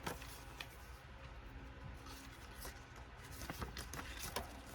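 Faint rustling and light taps of paper being handled: vintage postcards and envelopes taken out and turned over, with a few soft clicks near the end over a low room hum.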